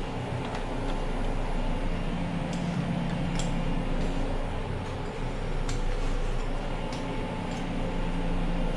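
A few faint metallic ticks of a lock pick working in a door-knob lock, over a steady low hum.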